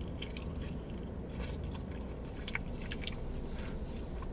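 Chewing and biting into sauced chicken wings, heard as scattered short wet clicks and smacks over a low steady hum.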